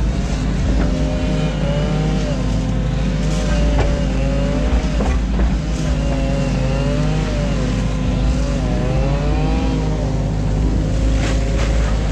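New Holland Kobelco E 50.2 mini excavator's diesel engine running steadily under work load, with a hydraulic whine that rises and falls as the arm and bucket move. A few short knocks from the bucket working the ditch.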